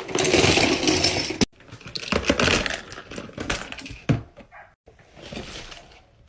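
A pile of plastic and silicone fidget toys being tipped out onto a bed, clattering and rattling against each other. There is a loud rush for about the first second and a half, cut off sharply, then further bursts of clicking that get fainter.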